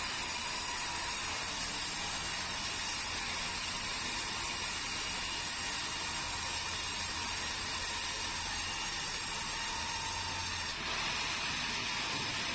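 Sawmill saw cutting keruing timber: a steady hissing noise with a faint high whine over a low motor hum, shifting slightly near the end.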